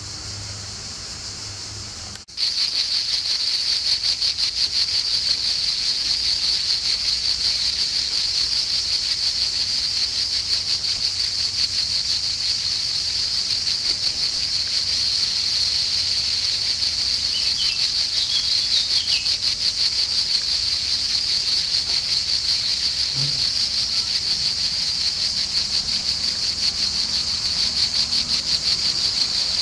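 A steady insect chorus, a fast pulsing high buzz, that jumps suddenly much louder about two seconds in and then runs on evenly.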